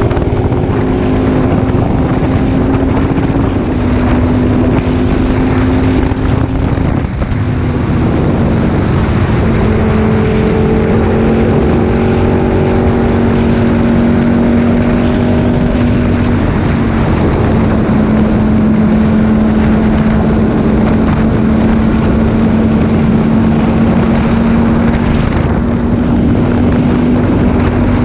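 Aprilia Tuono 1000R's V-twin engine running steadily at cruising speed, with wind rushing over the microphone. The engine note dips briefly about seven seconds in, then settles a little lower.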